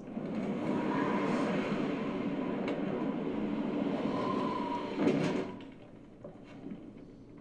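Large sliding door, such as a barn or shed door, rolling along its track with a long rumble that ends in a louder knock about five seconds in.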